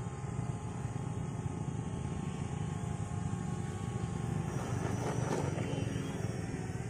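Radio-controlled model airplane's motor and propeller running as the plane takes off from grass. It grows louder about five seconds in as the plane lifts off and climbs.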